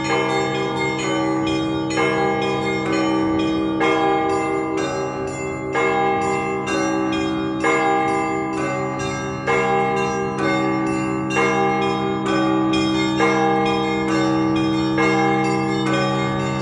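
Russian Orthodox church bells rung together in a full peal calling to a service. Small bells strike a fast repeating pattern of about three strokes a second over the sustained hum of the large bells, with heavier strokes landing about once a second.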